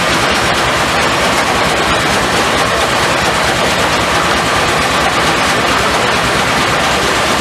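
Steam-powered sawmill machinery running: a loud, steady mechanical din with no pauses.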